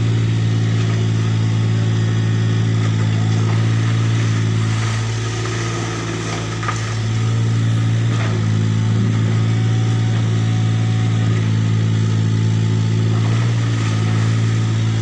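Tata Hitachi mini excavator's diesel engine running at a steady pitch while the machine digs, with a slight drop in level about six seconds in.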